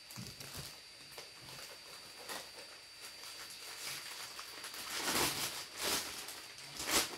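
Plastic packaging bag rustling and crinkling as it is handled and unfolded, in irregular bursts, loudest about five seconds in and again just before the end.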